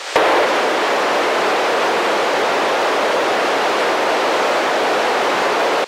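Steady loud static hiss from an FM handheld radio with the squelch open, the empty SO-50 satellite downlink between transmissions. It comes on suddenly and cuts off suddenly near the end.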